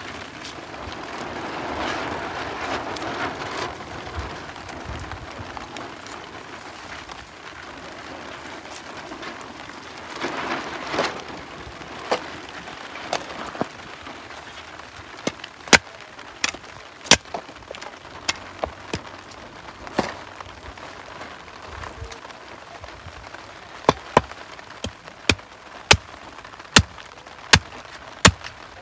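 A knife scraping and knocking against a charred, singed goat head on a wooden block: rustling handling noise in the first few seconds, then a run of sharp clicks and knocks that come faster near the end.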